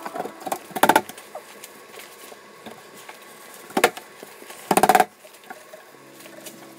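Short clattering knocks as a glass cooktop is handled and set into its worktop cut-out: one about a second in, a sharp one near four seconds, and a longer rattle around five seconds.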